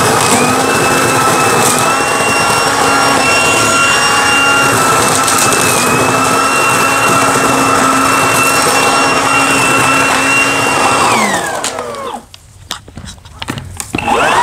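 Kaltmann Titanium 40V brushless leaf vacuum running with a steady high whine as dry leaves rattle through its shredder. About eleven seconds in the motor is switched off and the whine falls away. Near the end it is switched back on and rises to speed again.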